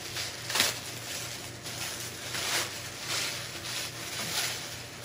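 Wrapping paper rustling and crinkling in irregular handfuls as a package is unwrapped by hand, the loudest crinkle about half a second in.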